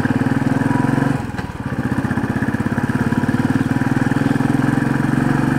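Royal Enfield single-cylinder motorcycle engine running steadily under way, heard from the rider's seat, with an even, rapid beat. Its sound eases briefly about a second in, then picks up again.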